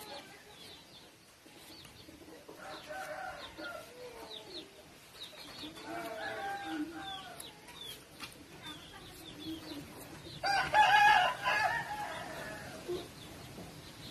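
Chickens clucking in short calls, then a rooster crowing loudly for about a second and a half, about ten and a half seconds in.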